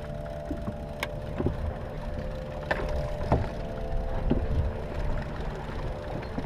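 Charter fishing boat's engine idling with a low rumble, a steady mid-pitched hum over it that stops near the end, and a few light knocks of gear against the boat.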